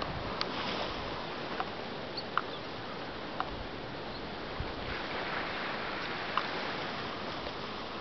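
Small waves washing onto a white sand beach: a steady hiss of surf that swells a little about five seconds in, with wind gusting on the microphone and a few short sharp ticks.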